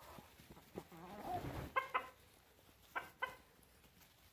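Chickens clucking in their coop: a soft, wavering call about a second in, then two pairs of short, sharp clucks.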